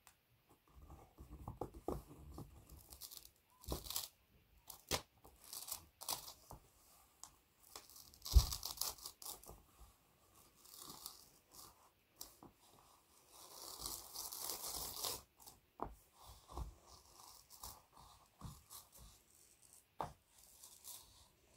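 Two graphite pencils scratching and scraping across a large sheet of paper in slow, irregular strokes, with a sharp knock about eight seconds in.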